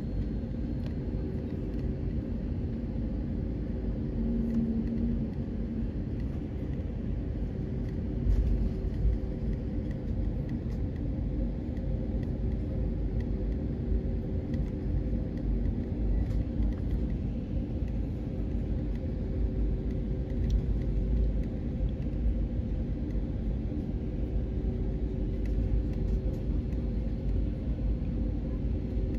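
Steady low rumble and hum of an Airbus A320neo's engines heard from inside the passenger cabin, with faint clicks and rattles now and then.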